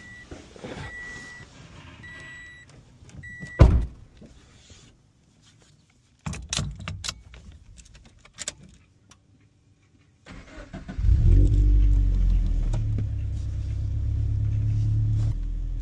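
A car's door-open chime beeps steadily, then the door slams shut about four seconds in. A few clicks and knocks follow, then about ten seconds in the Toyota 86's flat-four engine starts. It runs at a raised idle that eases slightly near the end.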